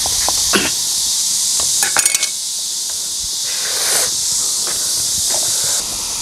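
Kitchen knife cutting into a pig's head on a chopping block, with a few sharp knocks and a short rattle of clicks about two seconds in, over a steady high hiss.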